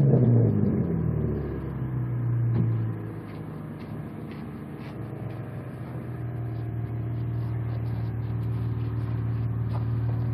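Exhaust of a TJ Mitsubishi Magna VR-X's 3.5-litre V6, running through Pacemaker extractors, a 2.5-inch high-flow cat and a custom 2.5-inch cat-back with a small glass-packed sports muffler and a hotdog resonator. The revs drop back from a blip and settle to a steady idle about three seconds in.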